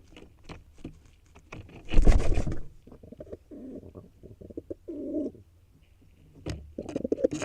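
A bird in a nest box moving about, with clicks, knocks and a loud scuffling burst about two seconds in, and several short, low calls later on.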